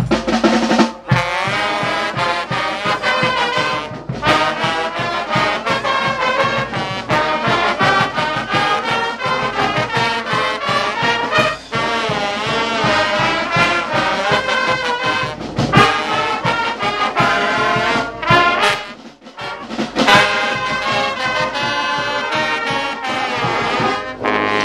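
Marching band playing an upbeat tune: trumpets, saxophones, clarinets and sousaphones in full chorus over a steady beat of drums. The music drops out briefly about three-quarters of the way through and comes back in.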